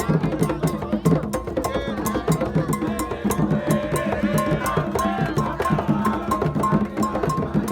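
Candomblé ritual music: drums and a bell struck in a fast, steady rhythm, with voices singing over them.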